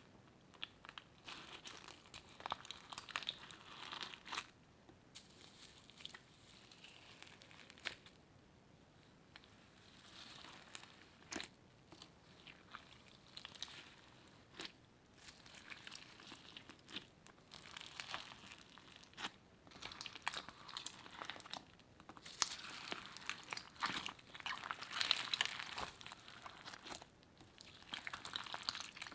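Slime being kneaded, stretched and folded by hand, giving irregular crackling, popping and squishing with sharp little clicks, busier and louder near the end.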